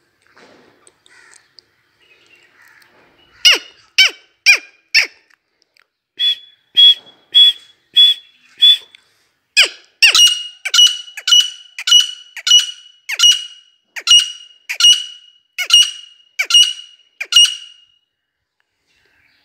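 Female grey francolin (teetar) calling: three runs of loud, shrill whistled notes. The last and longest run starts quick, about two or three notes a second, then slows towards the end.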